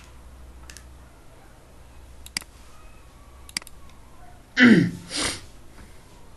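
A few sharp computer mouse clicks spread over several seconds, then, louder, two short breathy noises from a person close to the microphone, about half a second apart.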